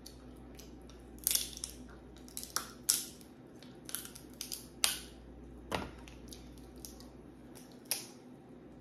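Hard crab leg shells being cracked and snapped open by hand: a string of irregular sharp cracks and snaps, some louder than others.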